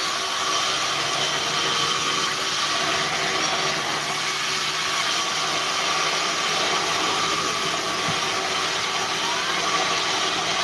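Large vertical band sawmill running steadily, its blade sawing boards off a log, with an even, unbroken machine noise.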